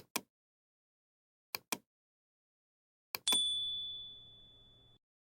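Three quick double taps, the last one striking a small metal bell that gives one clear, high ding and rings out for under two seconds.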